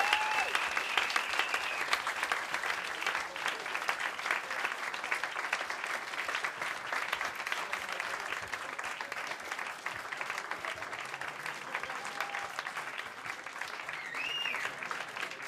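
Small club audience applauding at the end of a stand-up set, easing off slowly, with a high-pitched call from the crowd near the start and again near the end.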